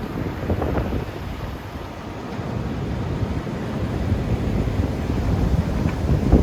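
Strong wind buffeting the microphone in gusts, over a dense low rumble. A sharp thump near the end.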